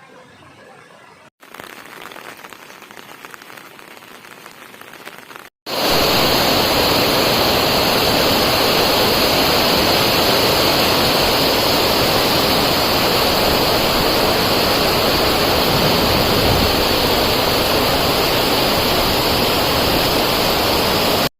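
Steady rush of water, in three cut-together stretches: faint at first, louder after a cut just over a second in, and loud and even from about six seconds in.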